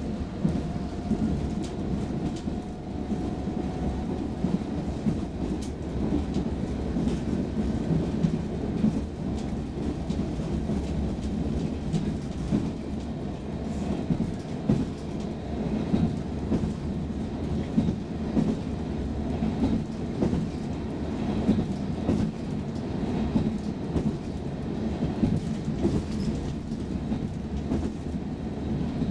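Cabin noise of an SL X10p electric railcar running at speed: a steady low rumble of wheels on rail, broken by frequent small irregular knocks.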